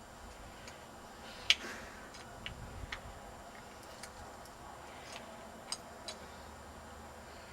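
Irregular small clicks and taps of a plastic dog-fountain valve and its parts being worked by hand, the sharpest about one and a half seconds in.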